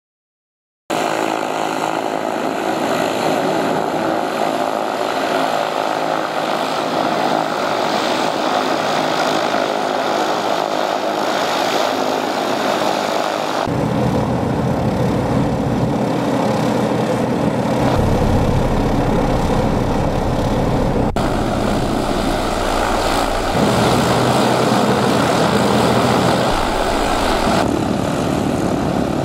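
Piston engines and propellers of single-engine Mooney aircraft running at low power on the ramp as they taxi. The sound changes abruptly several times, with a deeper low rumble from about halfway through.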